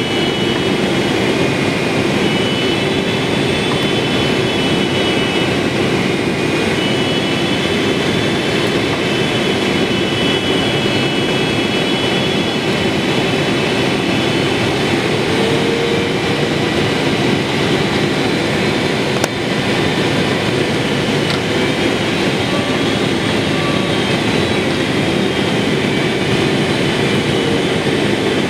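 Steady cabin noise inside a Boeing 777-300ER descending to land: the rush of its engines and the airflow, with faint high whining tones that waver slightly in pitch.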